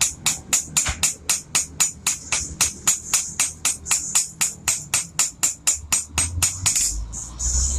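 Background music with a steady tambourine or shaker beat, about four to five strokes a second, which stops near the end as a low engine hum comes in.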